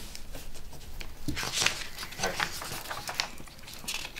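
Pencils scratching on paper and pages rustling at a table, in short irregular strokes, with a soft low thump about a second in.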